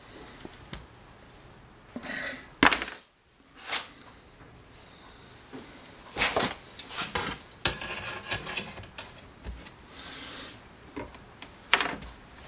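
Metal wire rack clanking and rattling against a metal frying pan as it is worked by hand and fitted in: several sharp clanks, with a spell of quick rattling clicks in the middle.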